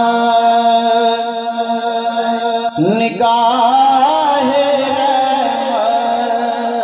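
A man singing a Punjabi naat through a microphone and loudspeaker, unaccompanied. He holds one long steady note, breaks off about three seconds in, then sustains another long note with wavering ornaments.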